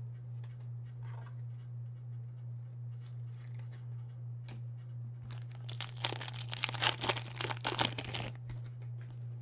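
Clear plastic wrapper of a trading-card pack being torn open and crinkled by hand, a dense crackling that starts about five seconds in and lasts about three seconds, after a few light handling clicks. A steady low hum runs underneath.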